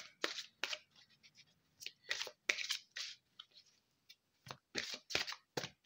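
Oracle de l'Arbre de Vie card deck being shuffled by hand: a dozen or so short, unevenly spaced swishes and scrapes of cards sliding against each other.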